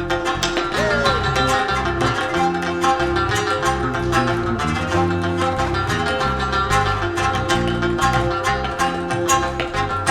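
Instrumental passage of a Central Asian folk song: a rubab plucked in rapid runs over tabla and sustained accompanying tones.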